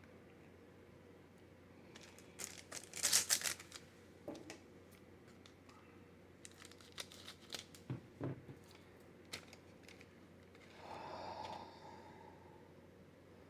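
Foil trading-card booster pack being torn open, a crackling tear about three seconds in, followed by scattered clicks and rustling of the wrapper and cards being handled.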